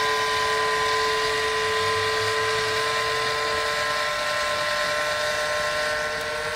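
Battery-operated barbecue rotisserie motor whining steadily as it slowly turns a wire fish basket, over the steady hiss of the gas barbecue.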